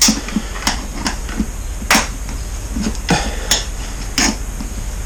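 Sharp, irregular knocks and clacks, about six of them, from a stuck plastic airbox on a Kawasaki ZX-9R being worked loose by hand.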